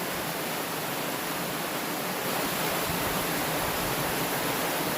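Small creek waterfall rushing: a steady noise of falling water, loud enough that a voice has to be raised over it, growing slightly louder about two seconds in.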